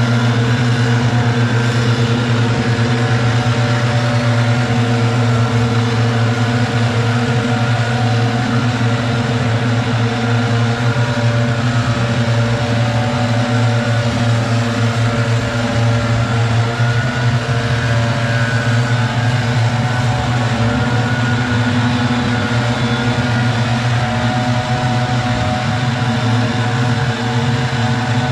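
Several gas backpack leaf blowers running together, a loud steady drone as they blow leaves.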